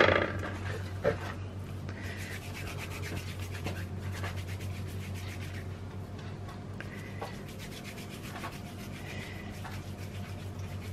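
Hands rolling soft milk-powder dough between the palms into a ball: a soft, steady rubbing of skin on dough. A sharp knock comes right at the start.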